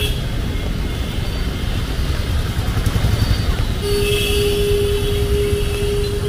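Street traffic rumbling, with a vehicle horn sounding one long steady blast that starts about four seconds in.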